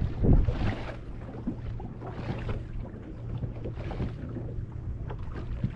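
Wind buffeting the microphone and choppy waves slapping against a boat hull, with a gust loudest near the start and a steady low hum underneath.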